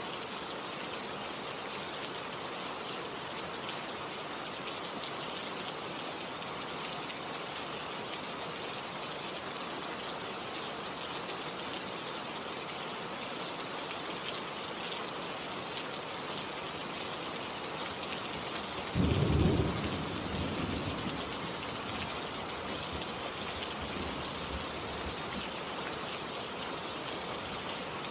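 Steady rain hissing throughout. About two-thirds of the way in, a sudden low clap of thunder breaks out and rumbles away over a couple of seconds, with a fainter rumble a few seconds later.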